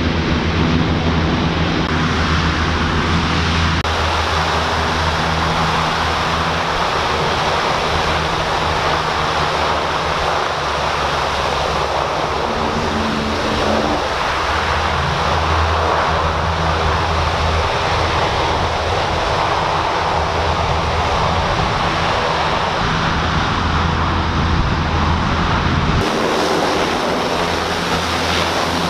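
U.S. Navy LCAC hovercraft running under power: the steady loud roar of its gas turbines, ducted propellers and lift fans, with a low drone and a rushing of air and spray. The sound shifts abruptly a few times.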